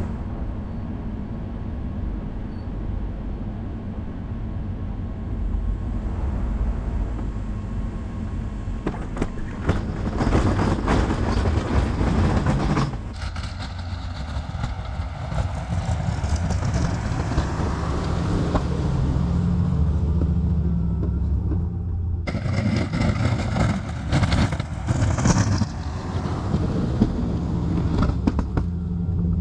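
Pickup truck engine running steadily under a snow plow, with louder stretches of rushing, scraping noise about a third of the way in and again through the last quarter.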